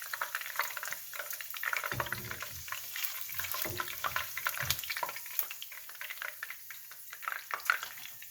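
Chicken pieces frying in hot oil, a steady sizzle with a dense run of crackles and pops. It is the second fry, which crisps the chicken further.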